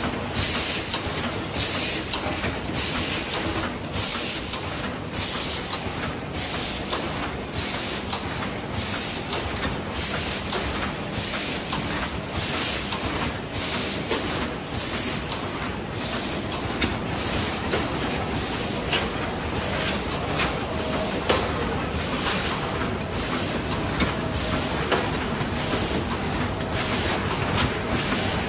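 Cornetto cone filling machine running, with a short hiss of compressed air repeating about every three quarters of a second in step with its cycle, over continuous mechanical clatter.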